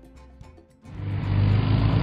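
Motor vehicle engine running, coming in about a second in and rising to a steady drone with a low hum.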